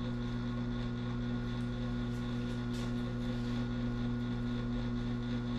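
A steady, even hum with a low buzz beneath it, unchanging throughout, and a few faint clicks between about two and three and a half seconds in.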